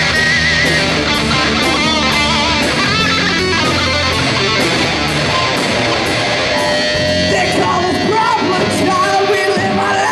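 Rock music without vocals: an electric guitar lead playing wavering, bending notes over bass and a steady drum beat.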